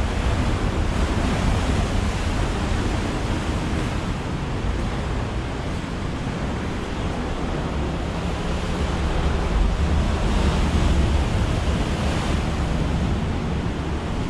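Wind buffeting the microphone in a steady low rumble, over an even outdoor rushing noise.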